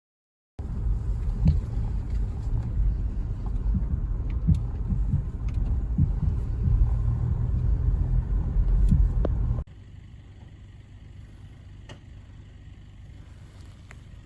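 Low, steady rumble of a vehicle on the move, with scattered knocks and clicks. About ten seconds in it drops abruptly to a much quieter steady rumble.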